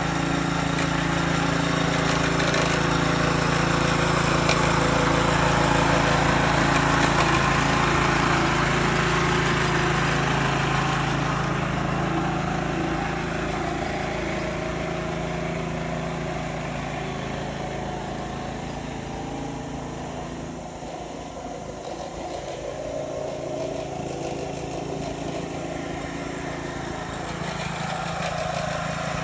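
Engine of a Kawasaki TB70 flail-shaft grass cutter running steadily on test. It is loudest through the first third, drops lower about two-thirds of the way through, then picks up again near the end.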